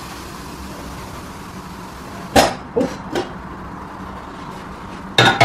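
Metal pressure cooker lid being turned and lifted off the pot, with sharp metallic clanks: three in quick succession about halfway through, and two more near the end, over a steady hiss.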